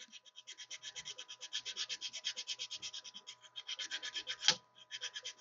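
800-grit sandpaper rubbed rapidly back and forth against the tips of copper resistance-welding electrodes, an even rasping of about ten strokes a second, with one sharper tick about four and a half seconds in. The tips are being sanded to smooth a rough spot and take off burrs that cause sticking and copper deposits.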